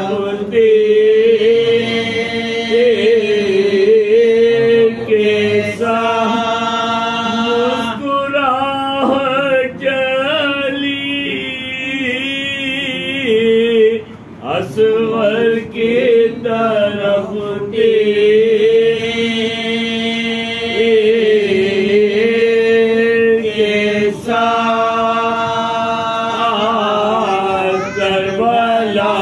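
Several men chanting a Muharram mourning elegy in unison into a microphone, a lead voice with others holding long notes beneath it. The chant breaks off briefly about halfway and resumes.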